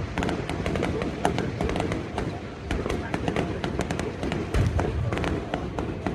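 Fireworks going off: a dense run of sharp crackles and pops, with a deeper boom about four and a half seconds in. Background voices are heard under them.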